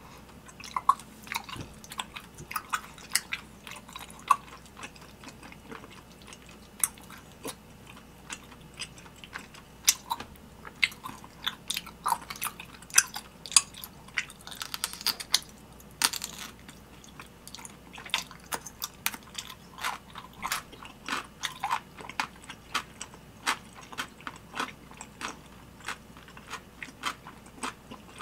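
Close-miked chewing and biting of spicy tteokbokki rice cakes. Irregular sharp mouth clicks come several times a second, with a brief noisier stretch about halfway through.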